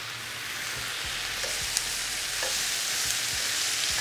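Sliced zucchini, squash and carrots sizzling steadily in oil in a frying pan over high heat, stirred with a wooden spoon, with a few light clicks.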